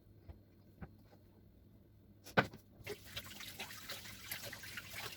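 A knock about two seconds in, then hot oil sizzling and crackling as breaded potato croquettes go in to fry.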